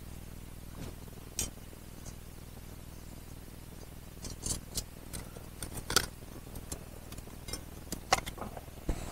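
Sparse light clicks and clinks of a cooking pan and metal utensils being handled over a campfire, a lone one early and more bunched in the second half.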